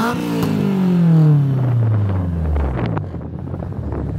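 Honda S2000's four-cylinder engine through a freshly fitted Spoon N1 quad-tip exhaust, its revs falling back from a blip over about two and a half seconds, then idling steadily.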